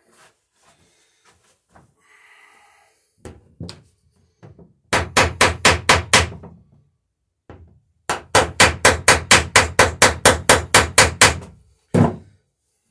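Ball-peen hammer striking copper rivets in wooden boat planking: a quick run of about eight blows, a short pause, then a longer even run of about seventeen at roughly five a second, and a single blow near the end.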